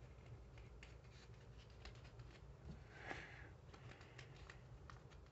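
Faint paper rustling and light clicks as foam Nerf darts are pushed by hand into a rolled-paper magazine, with a slightly louder rustle about three seconds in.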